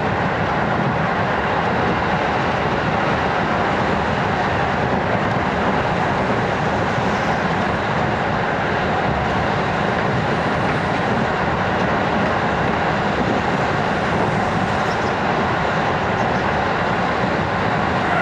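JR 205 series 'Iroha' electric train running at speed, heard from inside the car: an even running noise of wheels on rail and the train's motion, with no changes.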